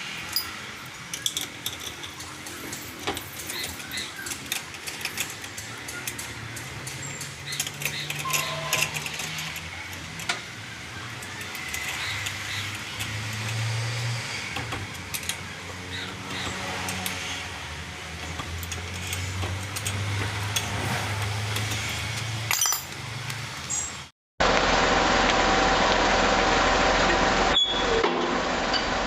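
Scattered metallic clinks and taps over a low, wavering hum, typical of tools and parts being handled during the wheel-bearing job. About 24 seconds in, the sound cuts off abruptly and a steady mechanical running sound takes over.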